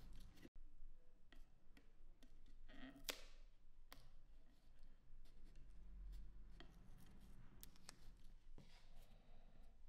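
Near silence: faint room tone with a low hum and scattered small clicks and taps, the sharpest about three seconds in.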